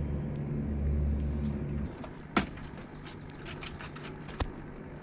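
Steady low motor hum that cuts off abruptly about two seconds in. It is followed by two sharp clicks and light ticking and handling noises as a metal tool works the hook out of a rock bass's mouth.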